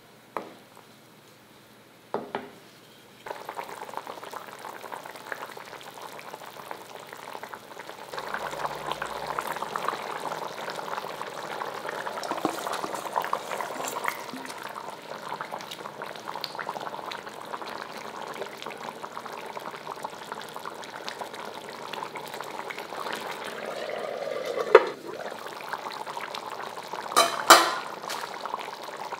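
Curry gravy bubbling and simmering in a cooking pot, a steady crackling bubble that starts about three seconds in. A few sharp knocks of a utensil against the pot stand out near the end.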